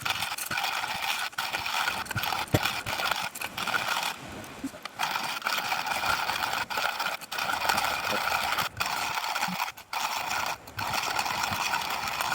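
Soulhand hand-crank coffee grinder grinding whole coffee beans: a steady gritty crunching with scattered clicks, broken by a few short pauses in the cranking.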